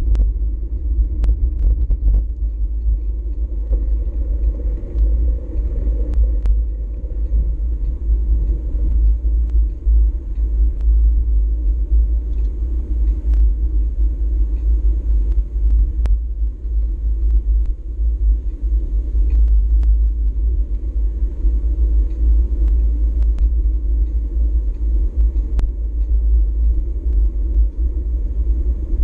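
Steady, loud wind noise buffeting the microphone of a GoPro Hero4 Session action camera on a moving bicycle, with a few sharp clicks scattered through it.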